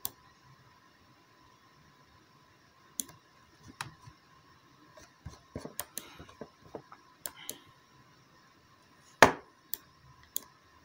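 Computer mouse and keyboard clicks, scattered and irregular, with a busier run in the middle and one louder knock near the end. A faint steady hum runs underneath.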